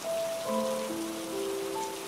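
Steady rain splashing onto a surface covered in standing water. Soft music with held notes is layered over it, a new note coming in about every half second.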